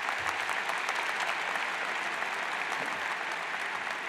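Large audience applauding, a dense even clatter of many hands clapping that begins to thin out near the end.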